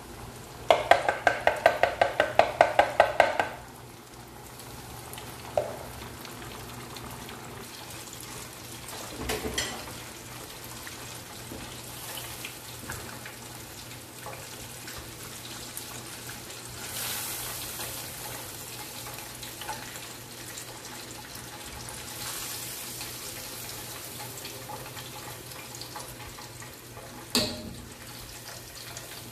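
Chicken deep-frying in a saucepan of hot oil, a steady sizzle. Near the start comes a rapid run of about a dozen loud, evenly spaced beeps, and near the end a single sharp clink of metal tongs against the pan.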